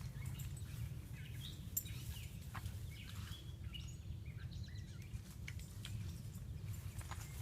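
Small birds chirping faintly in the woods, a cluster of short calls a few seconds in, over a steady low rumble, with a few light snaps and footfalls in the brush.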